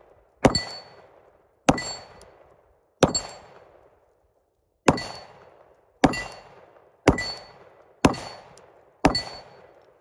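Glock 17 firing 9mm rounds, eight shots at about one a second with a short pause after the third. Each shot carries a brief metallic ring from the steel target being hit.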